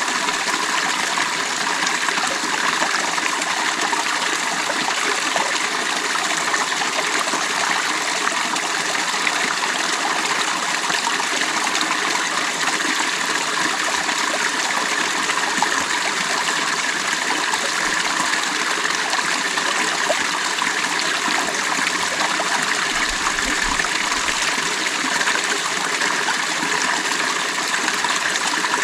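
Creek water flowing and trickling over stones, a steady rushing babble.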